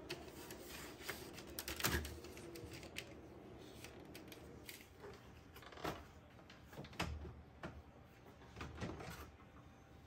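Irregular clicks and knocks of a Fractal Torrent Nano PC case's front grille panel being handled and pulled off by hand, the loudest about two seconds in and about seven seconds in, over a faint steady hum.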